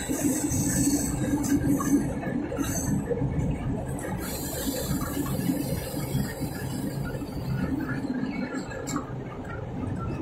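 Chennai MRTS electric suburban train running: a steady rumble of wheels on track, with a few brief clicks.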